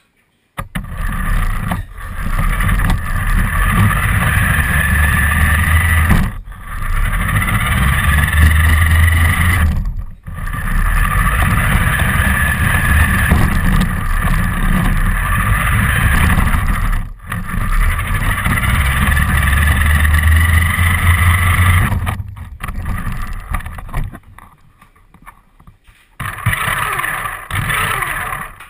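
Radio-controlled car driving, heard from a GoPro riding on it: a loud, rumbling rolling noise with a steady motor whine above it. It comes in runs of several seconds broken by brief cut-outs, and drops lower for a couple of seconds before a last burst near the end.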